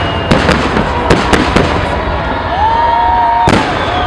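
Aerial fireworks shells bursting: a quick run of sharp cracks in the first second and a half, then one loud bang about three and a half seconds in. Held, wavering voices of a crowd cheering rise over the display in the second half.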